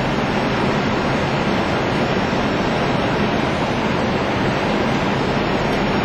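Steady rushing noise inside an Airbus A320 flight deck on short final approach: airflow over the nose and engine noise, with no distinct tones.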